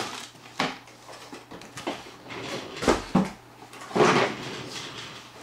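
Cardboard boxes being handled: a sharp knock right at the start, then a few short knocks and rustles, and a longer scrape about four seconds in as a box is moved on the floor.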